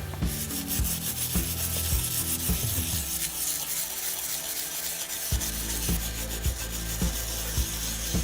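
Rapid abrasive rubbing strokes against the old copper sledgehammer as it is cleaned up, with a dense, scratchy scraping texture.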